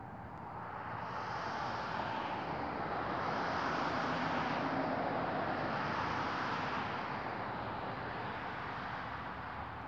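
A vehicle passing by: a rushing noise with no clear engine tone that swells over a few seconds, peaks midway, and fades away.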